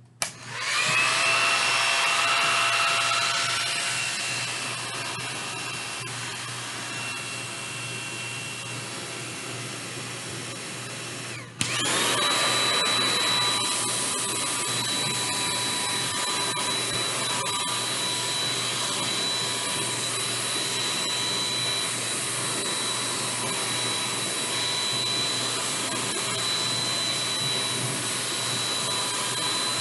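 Handheld hair dryer switched on and blowing steadily, drying chalk paste on a silkscreen transfer. About eleven seconds in it cuts out for a moment and comes straight back on, louder and with a higher whine.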